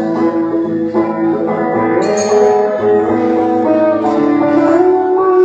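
Live acoustic band music led by guitar, with notes held and ringing.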